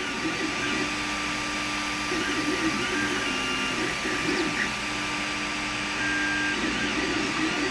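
Creality Ender 5 Plus 3D printer laying down infill: its stepper motors hum in short tones that change pitch and stop and start as the print head moves, over a steady whirr from the machine.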